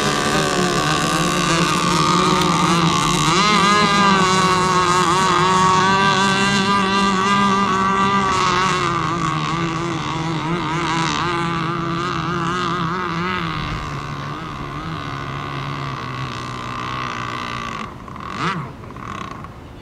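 Several radio-controlled racing boats running flat out together, their high engine whine wavering in pitch as they race. The sound slowly fades as the boats move away. Near the end one rises briefly in pitch.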